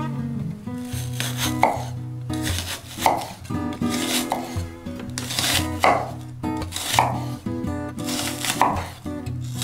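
Kitchen knife slicing down through a raw onion half onto an end-grain wooden cutting board, a steady series of cuts about one a second, with background music.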